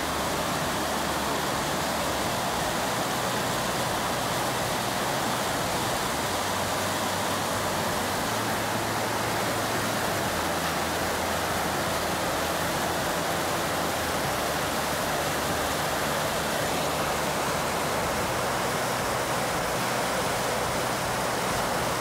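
Mountain stream rushing over boulders: a steady, unbroken rush of water.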